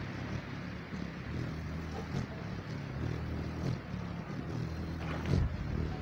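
Hummingbird's wings humming as it hovers close by, a low wavering buzz. A short thump a little past five seconds in is the loudest moment.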